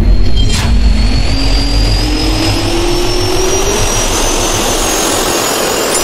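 Jet-turbine spool-up sound effect: a heavy rumble under a rising whine that climbs steadily in pitch, with a sharp crack about half a second in, cutting off abruptly at the end.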